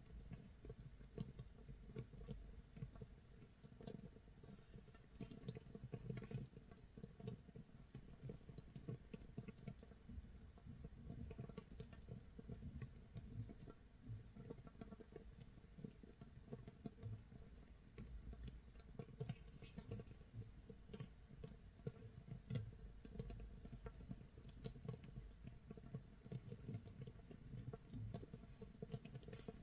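Makgeolli starter (mitsul) fermenting in a crock jar 24 hours in: a faint, dense, irregular crackle of small gas bubbles popping, like rain patter or rice crust sizzling.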